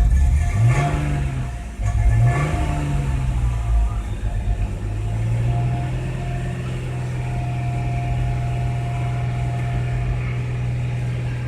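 Audi 2.8-litre V6 engine revved up and back down twice in quick succession, then running steadily. This is the engine of a car that idles roughly and stalls when left at idle.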